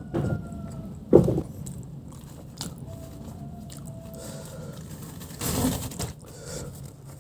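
Close-miked eating: biting and chewing crunchy spicy fried chicken, with three louder crunches, one right at the start, the loudest just after a second in, and one about five and a half seconds in.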